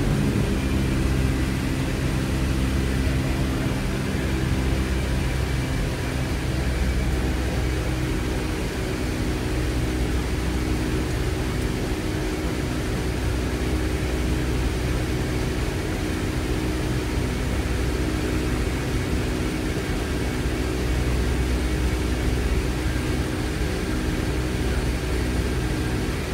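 Steady drone of a C-17 Globemaster in flight as heard on the flight deck: the four turbofan engines and airflow make a constant low hum with a few steady tones under an even hiss.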